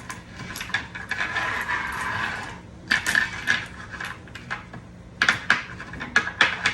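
Steel-case 5.56 cartridges clinking and sliding as they are fed through the channel of a wooden magazine loader. A quick run of sharp metallic clicks comes near the end.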